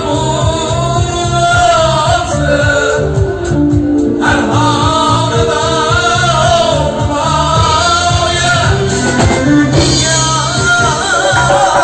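Live Uzbek band music with a male singer: a wavering vocal line over held accompaniment notes, a drum kit and a doira frame drum keeping a steady beat.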